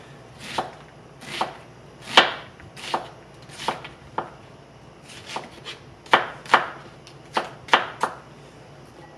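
A chef's knife dicing a yellow onion on a plastic cutting board: about a dozen sharp chops at an uneven, unhurried pace, stopping near the end.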